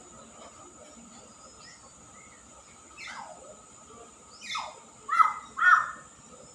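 Caged myna calling: two falling whistled sweeps, then two loud short calls in quick succession near the end.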